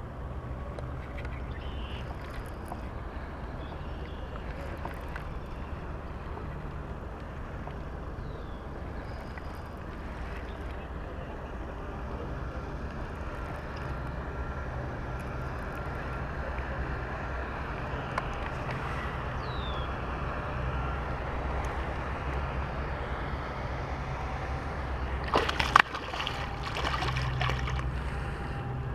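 Water sloshing and lapping along a rocky shore over a steady low rumble, with two faint short chirps. Near the end comes one sharp knock, the loudest moment, followed by a few seconds of crackling.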